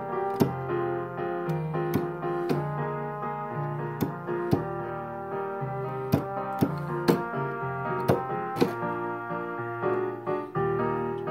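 Electronic keyboard with a piano sound playing the accompaniment to a trombone solo: chords over a moving bass line, with sharp percussive hits every second or so.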